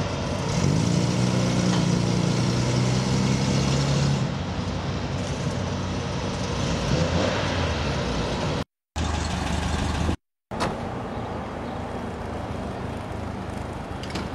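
Classic Jaguar Mark 2 saloon's straight-six engine running at low speed, with a strong, steady engine note for the first few seconds, then a lower rumble. The sound cuts out twice, briefly, a little past the middle.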